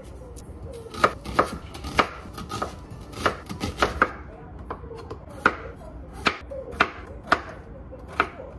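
Kitchen knife chopping food on a cutting board: about a dozen sharp, uneven strokes that start about a second in, some in quick pairs and runs, others spaced out.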